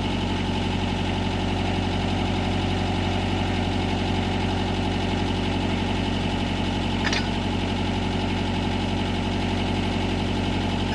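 Mitsubishi MS030 backhoe's diesel engine idling steadily, with one short sharp click about seven seconds in.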